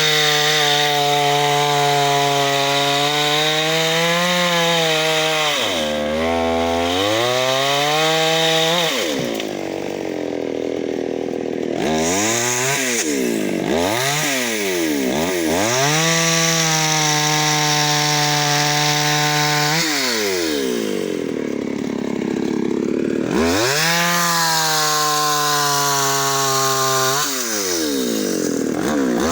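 Chainsaw cutting a tree. The engine runs at high speed and drops sharply in pitch about six seconds in and again around twenty seconds, then revs back up. Between those drops its speed swings up and down several times.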